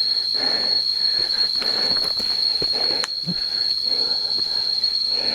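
Jungle insects, cicadas, keeping up one unbroken high-pitched drone, with a person's heavy breathing puffing under it about once a second.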